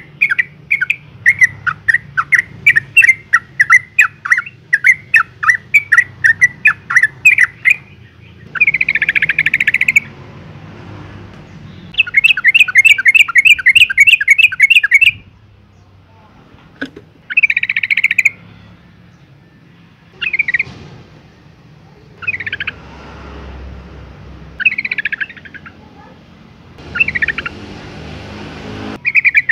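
Yellow-vented bulbul calling: a fast run of sharp chip notes, about four a second, for the first eight seconds or so, then a string of short bubbling, chattering bursts. It is presented as a female in breeding condition calling to a male.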